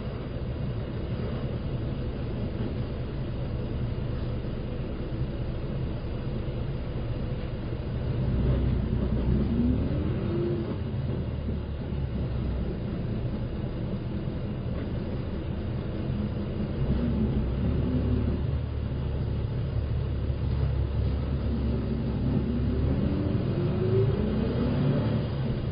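Shimotsui Dentetsu city bus running on the road, heard from inside the cabin: a steady low engine rumble that grows louder about a third of the way in, with a rising engine note as the bus accelerates, once there and again near the end.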